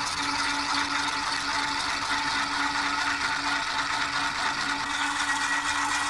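A homemade electric motor built from a dog food can, nails and a cork commutator running steadily. Its contacts make a fast scraping rattle on the spinning cork commutator, over a steady hum.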